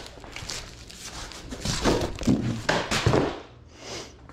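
Torn corrugated cardboard of a gaylord box being cut with a knife and pulled away: irregular scraping and rustling with a few dull thunks, busiest in the middle.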